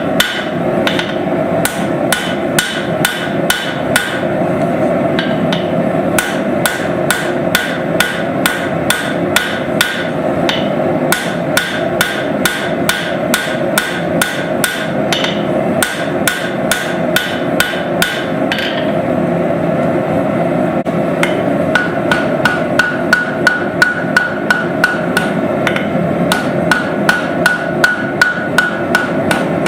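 Forging hammer striking steel on an anvil in a steady rhythm of about two to three blows a second, each blow ringing, over a steady rushing noise. For a few seconds past the middle the ringing drops away and the blows sound duller, then it returns.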